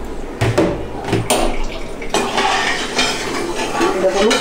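A metal spoon clinking against a metal wok a few times, then stirring and scraping through sugar and water in the pan to make sugar syrup.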